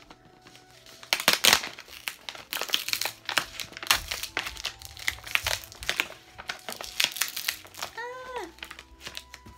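Paper crinkling and tearing as a white sheet is peeled off the top of a cardboard shipping box, in quick irregular crackles. A short vocal sound with falling pitch comes near the end.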